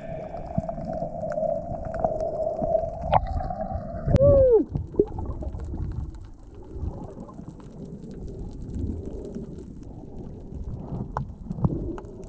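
Muffled underwater sound: low churning of water and bubbles against the camera housing, with a held tone that ends in a loud, sharply falling glide about four seconds in.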